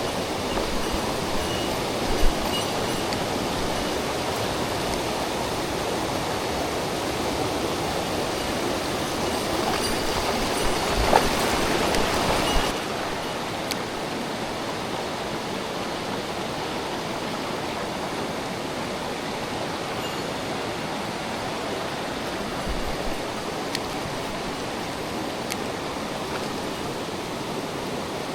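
Mountain stream rushing over rocks: a steady, even rush of water that drops abruptly to a slightly quieter level about halfway through.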